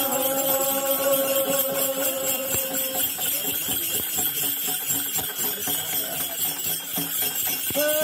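Strings of metal bells worn by shamans jangling in a steady shaking rhythm throughout. A chanting voice holds a note for the first three seconds, then stops, leaving the bells alone.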